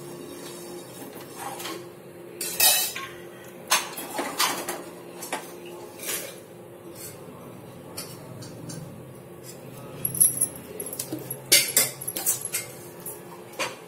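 Steel ladle and kitchen utensils clinking against metal vessels: scattered sharp clinks, one cluster in the first few seconds and another from about ten seconds in.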